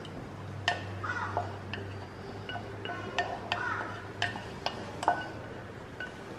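Steel vessel clinking and tapping against a steel strainer and pot, in a string of light, separate metallic taps, as the last soft ricotta curds are emptied into a cloth-lined strainer.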